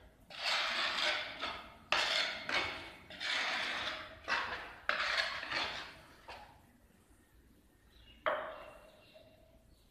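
Steel trowel scraping wet mortar in a run of six or so gritty strokes, working it against a metal mortar pan and onto the back of a tile. Near the end, a single sharp clank of metal on metal that rings on briefly.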